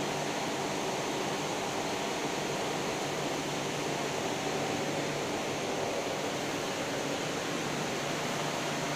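TIG welding arc giving a steady, even hiss with a faint buzz.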